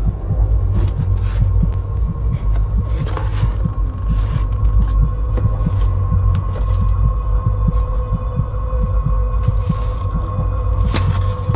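Low, throbbing rumble under a steady hum, a tense drone typical of horror sound design, with a few brief handling noises about three seconds in and near the end.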